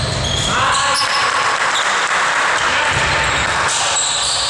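Basketball bouncing on a sports-hall floor during play, with scattered short knocks over steady background noise.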